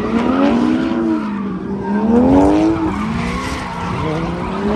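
Two drift cars, one of them a Fox-body Mustang, sliding in tandem with tyres skidding and squealing. Their engines rev up and drop back with the throttle, rising sharply three times, about two seconds apart.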